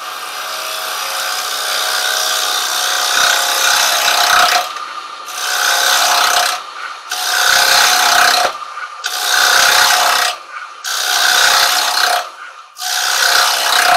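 Carbide-tipped chisel cutting a spinning silver birch bowl blank on a wood lathe. One long continuous cut for about four and a half seconds, then five shorter passes about a second and a half apart, with brief lulls between them.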